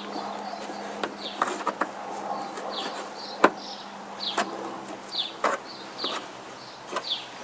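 Clicks and scrapes of a flat-head screwdriver prying plastic push-pin retainers out of a car's fender liner. The loudest snap comes about three and a half seconds in. A bird chirps over it, one short falling note about every second.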